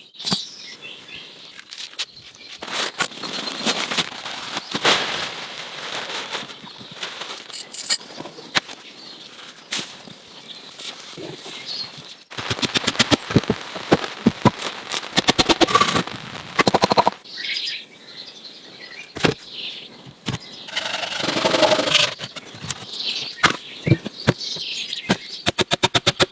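Hand work on wood: irregular knocks and clicks with stretches of scraping, and a couple of runs of fast, evenly spaced ticking, the longest near the end.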